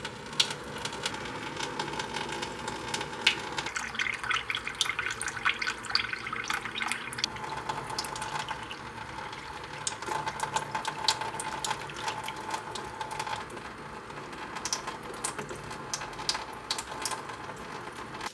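Thin stream of water running from a kitchen faucet and splashing into a plastic container in a stainless-steel sink, with many small irregular clicks and splashes as a cat laps from the stream.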